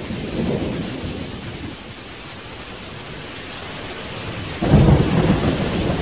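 Thunder-and-rain sound effect: a steady hiss of rain with a low rumble of thunder at the start, and a louder, deeper rumble about four and a half seconds in.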